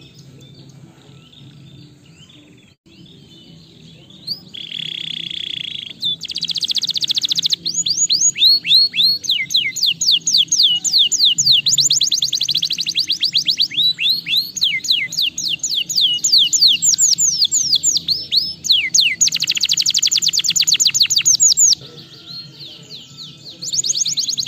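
Domestic canary singing: a few seconds of soft chirps, a buzzy roll about five seconds in, then long fast trills of rapidly repeated falling whistles in phrases, broken by a short pause near the end. A faint low hum runs underneath.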